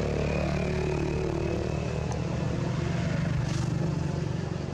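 A motor engine running steadily, a low even drone that eases slightly near the end.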